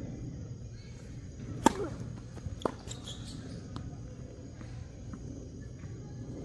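A tennis ball struck hard by a racket, one sharp crack about a second and a half in, followed about a second later by a second, lighter knock and a few faint ticks.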